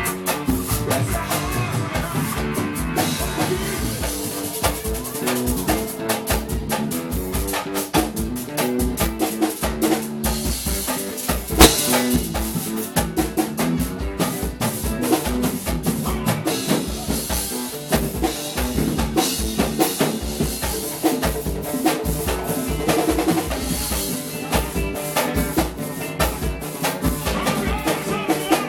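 A live band playing at a soundcheck: a drum kit keeps a steady beat with bass drum, snare and rimshots under bass and other instruments, with one sharp loud hit about twelve seconds in.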